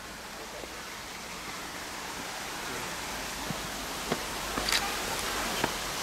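Steady rushing of a stream flowing nearby, slightly louder as it goes on, with a few light clicks in the second half.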